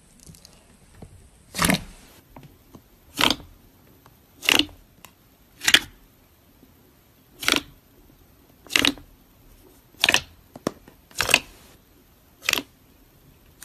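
Fingers pressing into thick white slime, each press giving a short, sharp pop of trapped air. Nine of them come in a steady rhythm, a little over a second apart.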